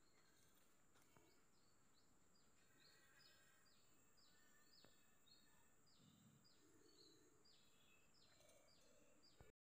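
Faint outdoor ambience: a bird calling over and over in short falling notes, about two a second, over a steady high-pitched tone. The sound cuts out abruptly just before the end.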